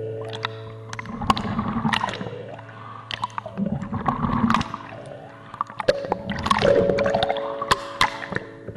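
Water sloshing and bubbling heard through an underwater camera, swelling every couple of seconds as limbs move, with many sharp clicks of bubbles and water against the housing. A steady low hum of tones runs underneath.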